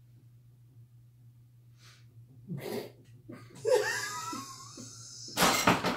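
A faint low hum, then, from a couple of seconds in, a person's laughter breaking out: short breathy bursts and squeaky rising-and-falling giggles that build to a loud burst of laughter near the end.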